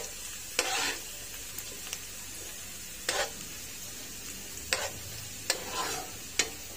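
Sliced onions and whole dried red chillies sizzling steadily in hot oil in a frying pan, the first stage of a tadka for dal. A steel spoon stirs them and scrapes across the pan about five times.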